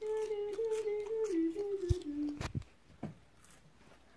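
A man humming a short tune that steps down in pitch for about two seconds, followed by a couple of sharp clicks.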